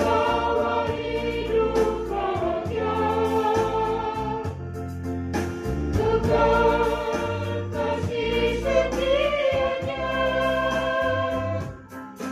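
Mixed choir of men and women singing a hymn together in parts at rehearsal, in sustained phrases, with a brief break in the singing near the end.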